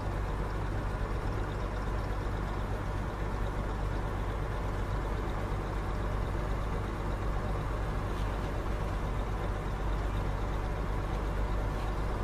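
Bizon Z056 combine harvester's diesel engine running steadily, a constant low engine hum with no change in speed.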